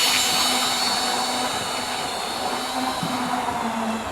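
Forty-year-old OO gauge Class 31 model diesel locomotive running steadily on the track, its motor whining with a low hum and a dragging sound that comes from its very old motor wheels.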